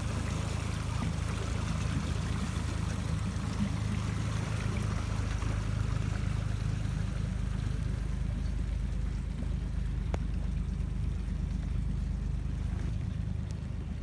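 A boat moving through choppy water: water splashing and rushing along the hull over a steady low rumble.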